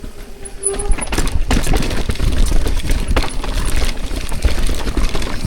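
Mountain bike riding down a rough downhill trail: tyres on dirt and the bike rattling over bumps, with a heavy rumble of wind on the microphone. It gets much louder about a second in.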